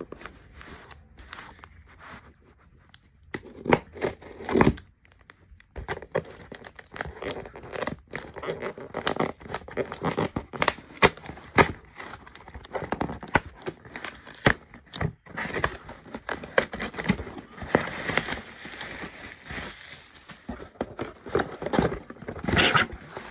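A cardboard shipping box being torn open by hand, with tape and flaps ripping and rustling in irregular bursts. The bursts begin a few seconds in.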